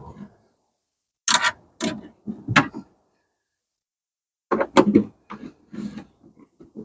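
Irregular clicks, clunks and rattles of lock parts and tools being handled while a door lock module and its cables are fitted back into a car door, in two clusters.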